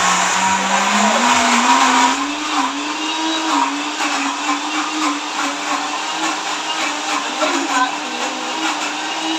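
Electric kitchen blender grinding roasted peanuts into peanut butter, quite noisy. The motor's pitch rises between about one and three seconds in as the speed is turned up, then runs steady over the grinding of the thick nut paste.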